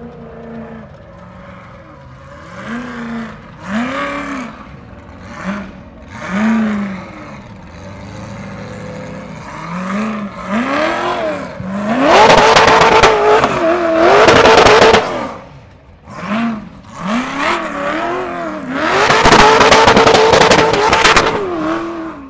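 Ultra4 race car's engine revving in short rising-and-falling blips as it crawls over boulders, then held at high revs in two long loud bursts, about twelve and nineteen seconds in.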